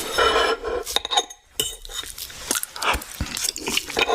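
Eating utensils clinking and scraping against dishes, a run of irregular sharp clicks and knocks.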